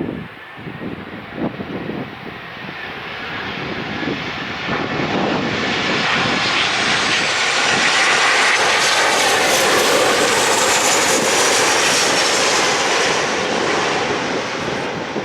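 Fixed-wing airliner passing close by, its engine noise swelling to a peak about two-thirds of the way through and then easing off, with a high whine that falls in pitch as it goes past.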